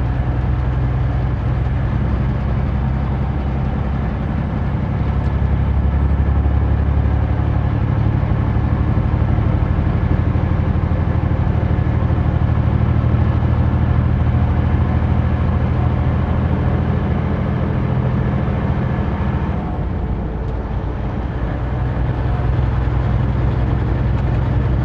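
Semi-truck diesel engine and road noise heard from inside the cab while driving: a steady low drone that grows a little heavier several seconds in and eases briefly about twenty seconds in.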